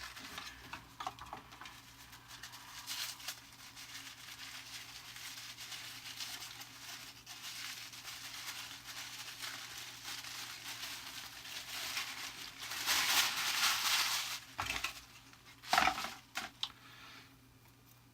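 Packaging being handled and unwrapped: continuous rustling and crinkling that grows louder near the end, followed by a few sharp clicks or knocks.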